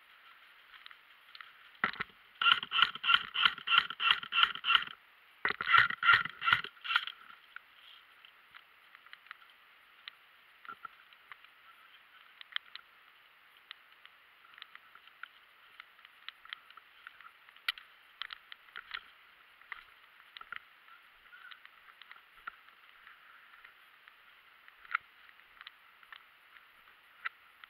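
An airsoft gun firing a rapid string of sharp shots, about three or four a second for some three seconds, then a second shorter string. Scattered faint clicks and rustles follow over a steady hiss.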